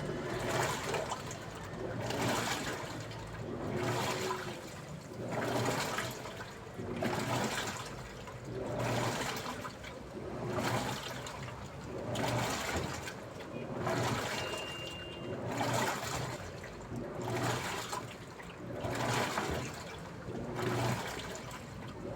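Daewoo washing machine washing a load: water sloshing in a regular swish that swells and fades about every one and a half to two seconds, with a low motor hum underneath.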